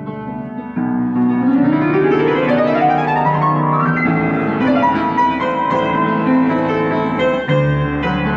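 Background music led by piano, with a rising run of notes from about a second in, growing louder about a second in.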